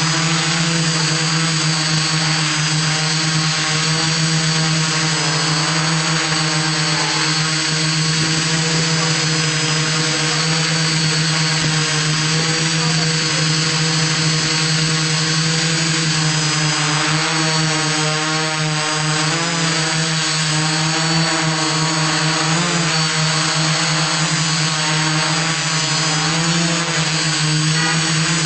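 iDEA FLY IFLY-4S drone's electric motors and propellers running steadily in hover, a constant low-pitched whine; a little past the middle the pitch wavers for a few seconds as the motors change speed, then settles again.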